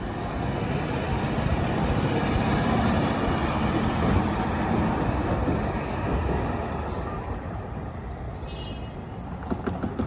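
Caltrain electric multiple-unit train running past as it pulls out. The rumble of its wheels on the rails builds about a second in and fades after about six seconds as it moves away.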